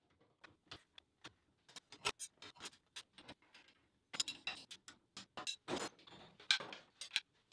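A run of light, sharp clicks and taps, roughly three or four a second and uneven, a little louder and busier in the second half.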